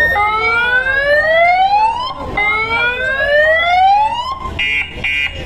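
Electronic siren effect played loud through a large outdoor sound-system rig: two rising sweeps of about two seconds each. About four and a half seconds in it changes to a fast pulsing, alarm-like beep.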